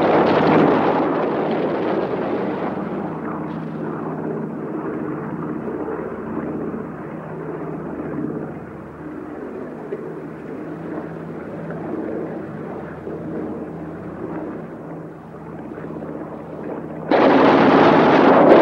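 Propeller fighter aircraft engine droning over heavy rumbling explosions from a ground attack. About three-quarters of the way through, a sudden, much louder burst of blasts and gunfire starts.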